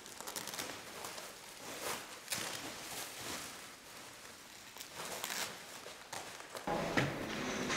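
Bubble wrap and clear plastic wrapping being handled and pulled apart, crinkling and crackling in short irregular bursts. Near the end a louder, lower background comes in with a single knock.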